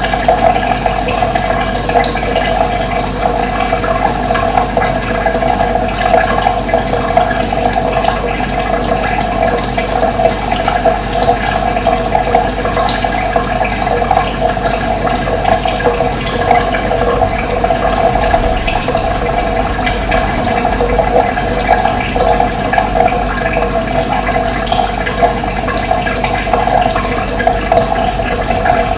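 Running water flowing steadily with an even rushing sound, with faint short high chirps scattered through it.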